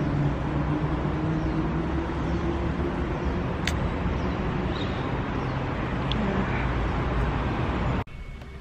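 Steady road traffic noise with a vehicle engine humming close by, and two brief sharp clicks in the middle. It cuts off suddenly near the end.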